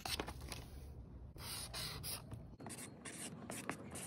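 Sheets of printer paper being handled and rustled, then a marker scratching across paper as words are written.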